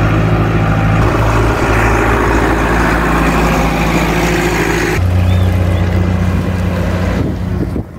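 A motor vehicle's engine running steadily close by, with a haze of noise over it. About five seconds in, the engine note changes abruptly and grows heavier.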